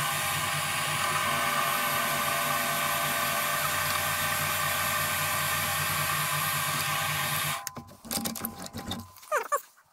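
Chinese mini lathe running with its chuck spinning during a facing cut: a steady whine of motor and gears. It is switched off about seven and a half seconds in and its hum winds down, followed by a few clicks and knocks.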